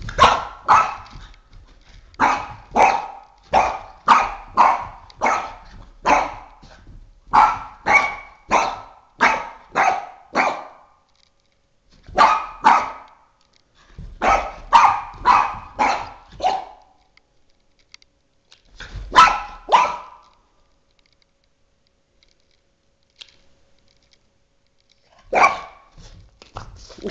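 Boston Terrier barking at a flashlight spot it is chasing: short, loud barks about two a second, in runs broken by pauses. A longer quiet spell comes late, then one more bark near the end.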